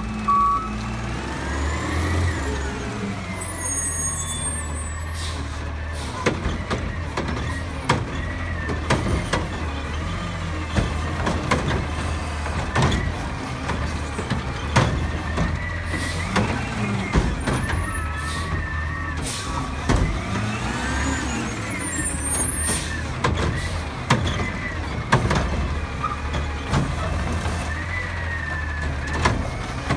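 Diesel front-loading garbage truck idling and revving up and down as its hydraulics lift and tip a cart, with hissing air brakes and metal clanks of the cart and arm.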